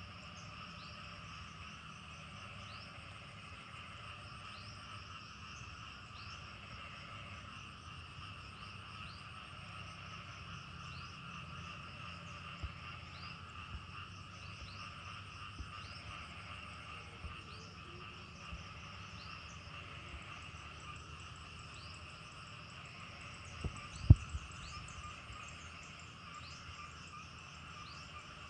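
Steady chorus of insects chirring in two even bands, with a short high rising chirp repeating about once a second over a low rumble. A single sharp knock about 24 seconds in.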